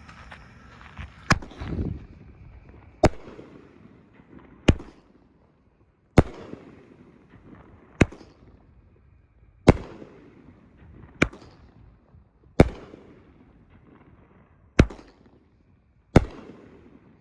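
Cutting Edge Imperial Wizard 16-shot consumer firework cake firing one shot at a time, about ten sharp bangs roughly every second and a half, each trailing off briefly.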